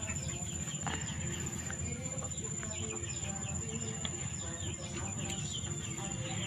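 Chickens clucking faintly and intermittently, over a steady high-pitched whine.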